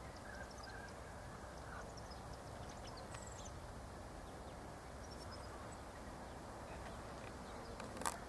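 Faint outdoor ambience: a steady low hiss with small birds chirping faintly and briefly in the distance, and a single sharp click about eight seconds in.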